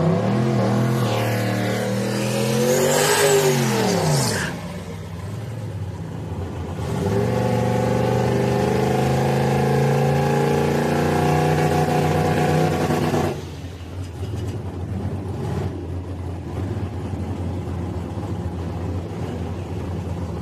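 Drag-racing pickup truck engines revving: the pitch rises and falls over the first four seconds, then an engine runs loud and steady for about six seconds and cuts off suddenly, leaving a quieter engine running.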